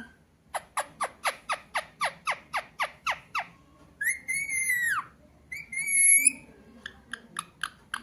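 Rose-ringed parakeet calling: a quick run of about a dozen sharp chirps, each falling in pitch, about four a second, then two longer whistled notes, the first arching up and dropping away at its end. A few faint chirps follow near the end.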